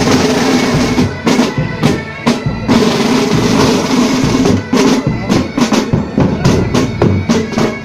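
Military pipe band playing on the march: bagpipes holding steady drone notes under the melody while the side drums beat rapid strokes and rolls, with bass drum thuds.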